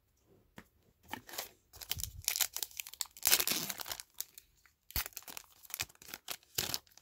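Trading-card pack wrapper being torn open and crinkled by hand: a run of sharp crackles and rips, densest about three to four seconds in, then scattered crinkles.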